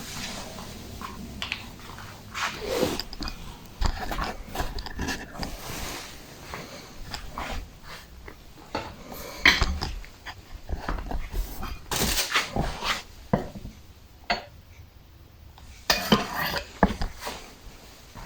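Irregular handling noise: rustling and scraping with scattered light knocks and clicks, the loudest clusters around a third, two thirds and near the end.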